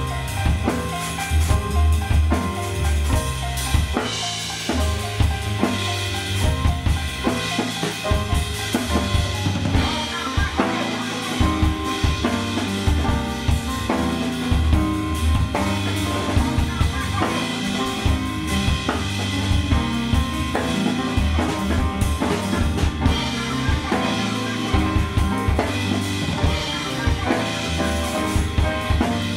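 Live band music driven by a drum kit: busy snare, rimshot and bass-drum playing with cymbals over deep, sustained bass tones.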